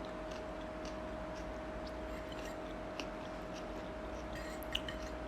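Close-up chewing of salad: faint, scattered crunches and mouth clicks over a steady background hum, with a few quick crunches together near the end.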